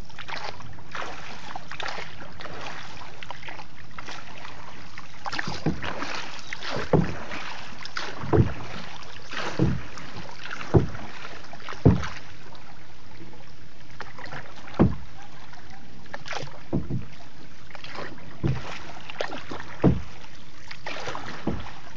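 Small boat being paddled through floodwater: a splash from each paddle stroke comes roughly every one to two seconds over a steady hiss.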